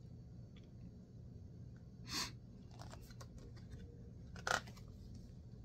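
Paper pages of a picture book rustling as they are handled and turned: two brief rustles, about two seconds in and again about four and a half seconds in, over a faint steady room hum.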